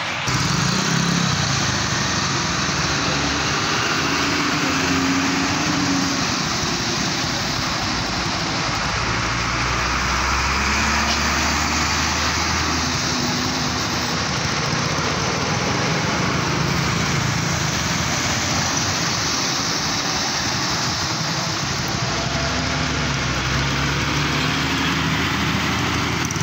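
Slow, jammed road traffic on a wet road: truck, bus and car engines running as they creep past, over a steady hiss of tyres on wet tarmac. Low engine tones come and go, stronger near the end as a heavy flatbed truck passes close by.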